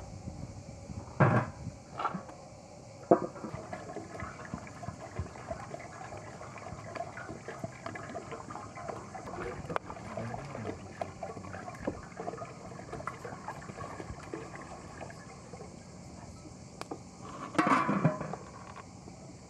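Water pouring from a clay jug into an aluminium cooking pot, with a few knocks in the first seconds. Near the end comes a clatter as the aluminium lid is set on the pot.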